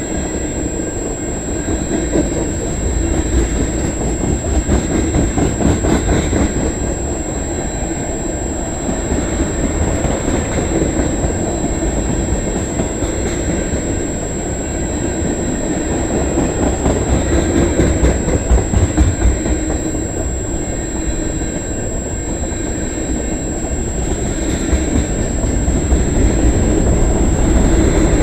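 Freight train of tank cars rolling past close by: a steady rumble and clatter of steel wheels on the rails, swelling and easing as the cars pass.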